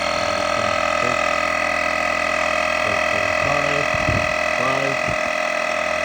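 Black+Decker 12 V portable air compressor running steadily, a loud even whine, pumping air through an inflating needle into a soccer ball.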